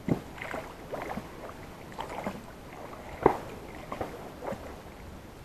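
A small boat being paddled across still water: irregular paddle dips and splashes with hollow knocks of the paddle against the hull, the sharpest knock a little over three seconds in.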